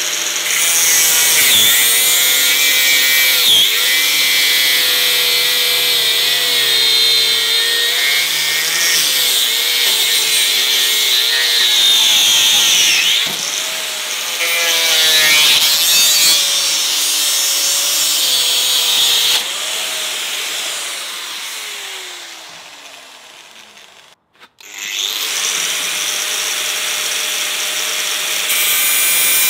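Corded angle grinder's cut-off disc grinding into the Barronium composite armour of a motorcycle D-lock shackle, its motor whine dipping in pitch as it is pressed into the cut. About two-thirds of the way through, the grinder winds down with a falling whine to a brief silence, then runs and cuts again.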